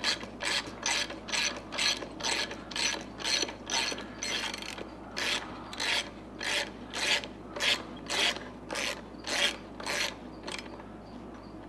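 Hand socket ratchet clicking in steady strokes, about two to three a second, as it backs out a bolt that has come loose; the clicking stops about ten seconds in.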